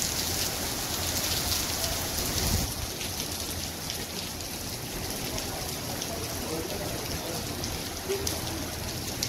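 Heavy rain pouring onto a paved street, a steady hiss of drops splashing on the wet pavement, a little louder in the first couple of seconds.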